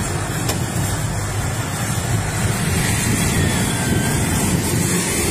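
Tornado wind rushing around and buffeting a car, heard from inside the cabin as a steady noise that grows a little louder near the end. One faint click comes about half a second in.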